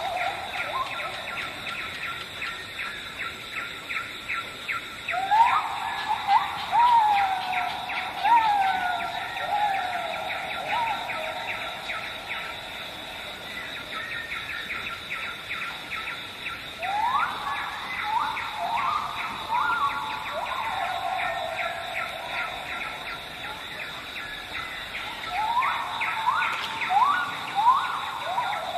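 Wild birds calling in three bouts, each a run of loud whistled notes that sweep up and slide back down. Under them runs a steady high insect drone and a fast, even ticking of chirps.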